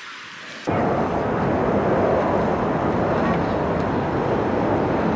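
A loud, steady rushing and rumbling noise that starts suddenly about a second in, with no clear pitch.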